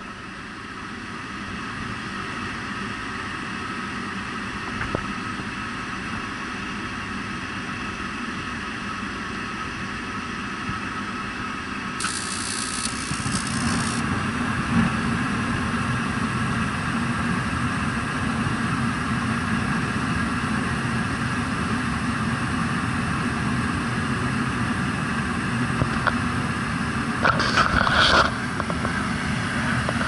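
Rheem rooftop gas heating unit starting a heat call. A steady motor and fan hum builds up over the first seconds; about 12 seconds in there is a short hiss, and from about 13 seconds a deeper rumble joins and holds, as the burners light and keep firing. A few brief knocks come near the end.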